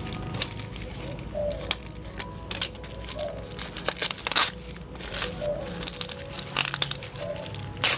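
Crumpled newspaper wrapping crinkling and crackling in irregular rustles as hands pull it open. A faint background music track plays underneath.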